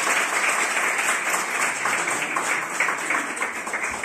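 An audience applauding, the clapping gradually getting quieter.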